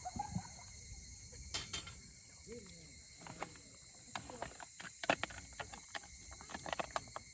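Steady, unbroken chorus of insects, high-pitched and continuous, with scattered sharp clicks and knocks of things being handled, the loudest about five seconds in.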